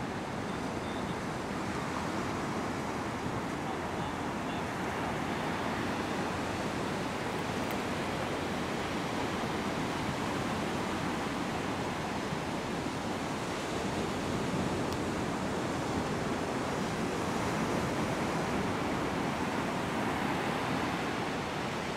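A steady rushing noise with no distinct events, swelling slightly a little past the middle.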